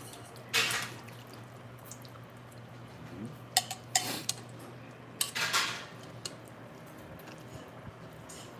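Utensils clinking and scraping against a metal noodle bowl while cold buckwheat noodles (naengmyeon) are stirred and eaten, with scattered sharp clicks and a few short noisy sounds.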